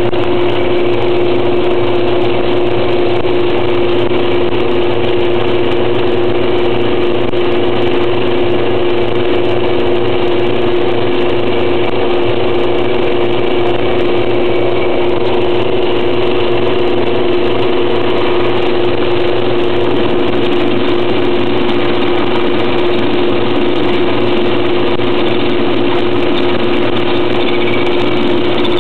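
Metal lathe running steadily with its chuck spinning a steel pin: an even mechanical hum that holds one pitch throughout.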